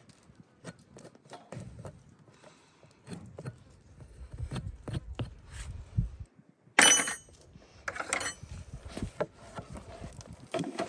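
Farrier's hand tools working a horse's hind hoof during a trim: irregular scrapes, clicks and knocks, with one loud, sharp metallic clack about seven seconds in.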